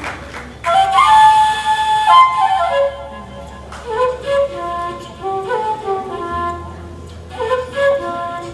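A flute playing a lively melody of short held notes, with plucked kora strings behind it.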